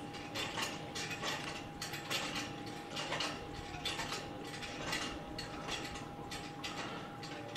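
Homemade spring-and-flywheel 'engine' built from McCormick-Deering threshing-machine pulleys, turning with light, slightly uneven metallic clicks about two or three times a second. It is running without any driving impulse to keep it going: no propulsion stroke, as its builder puts it.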